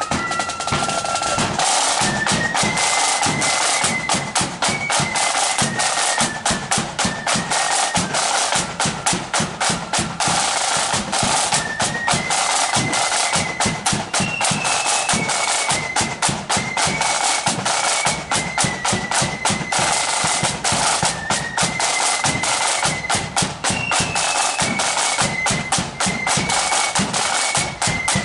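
Marching flute band playing a tune: flutes in unison carry a high, stepping melody over fast snare drum rolls and bass drum beats, the phrase repeating.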